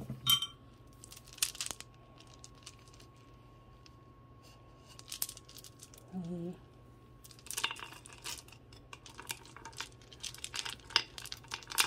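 Acrylic and wooden beads of costume-jewelry necklaces and bracelets clicking and clattering against each other as they are handled, in scattered bursts, busiest in the second half.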